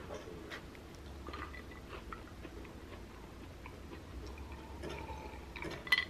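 Small clicks and rustles of a plastic biscuit packet being handled. Near the end comes one sharp clink of a drinking glass with a short ring.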